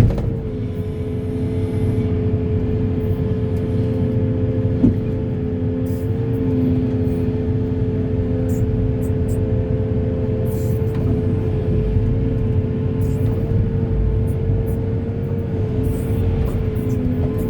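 Heavy diesel excavator running steadily: a low engine rumble under a constant high whine.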